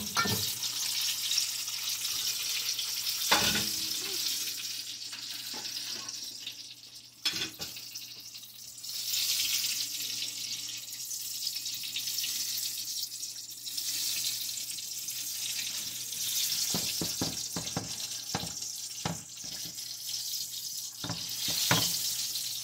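Butter, flour and oil sizzling in a frying pan as a roux cooks, stirred with a plastic whisk that ticks and scrapes against the pan, more often in the last few seconds.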